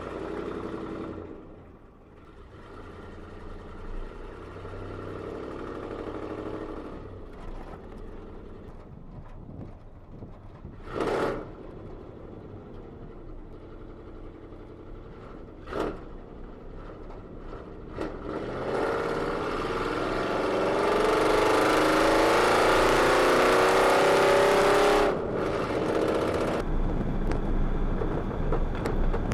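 V8-swapped Ford Ranger engine heard from inside the cab: it runs quietly at low speed with two short blips, then pulls hard under heavy throttle for several seconds before the throttle snaps shut. After that the exhaust crackles and pops on the overrun.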